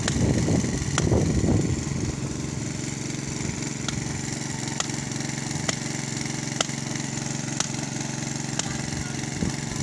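Small engine-driven water pump running steadily at idle. Sharp ticks come about once a second over it, and it sounds louder and rougher for the first second or two.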